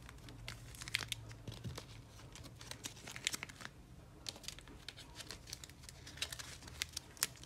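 Small cash envelopes in a clear plastic sleeve being handled and shuffled in the hands: soft plastic crinkling with many light, irregular clicks and taps.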